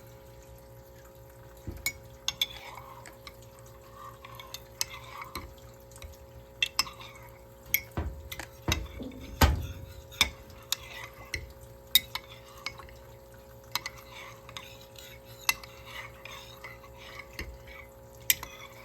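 A metal spoon stirring in a ceramic mug, clinking irregularly against the sides as a hot chocolate bomb dissolves. About halfway through there is a louder knock with a dull thud. A low steady hum runs underneath.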